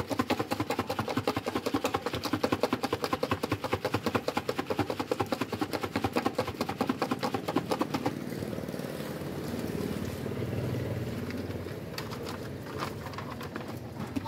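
Rapid, even knife chopping on a cutting board, about seven strokes a second, which stops about eight seconds in. A steady rushing noise follows and swells briefly a couple of seconds later.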